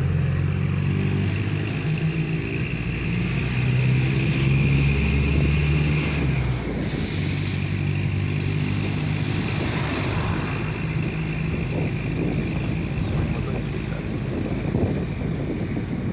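Mercedes-Benz OF-1418 bus diesel engine revving through its exhaust. The note climbs and is held for several seconds, then drops sharply about six seconds in with a short hiss, and the engine runs on rougher and uneven.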